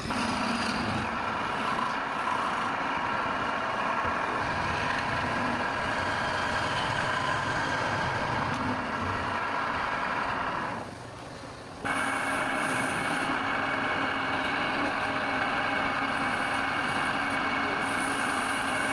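Wood lathe running with a steady motor whine and a noisy rush of turning or sanding. It drops off briefly about eleven seconds in, then comes back suddenly at full level.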